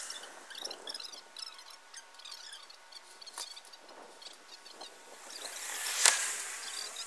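Outdoor background with scattered small high chirps and a faint steady insect-like drone. Near the end a rushing sound swells up to one sharp click, the loudest moment, then dies away.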